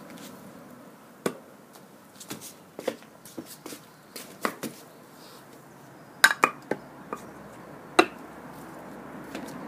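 Large plastic chess pieces being picked up and set down on a roll-out mat on patio decking, mixed with slipper footsteps: a string of light clicks and knocks, the loudest about six and eight seconds in.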